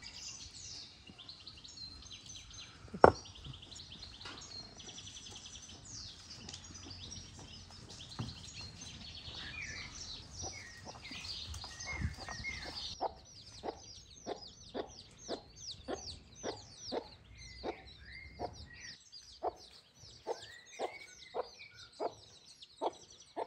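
Small songbirds chirping continuously. There is a single sharp knock about three seconds in, and over the second half a run of short, evenly spaced sounds about two a second.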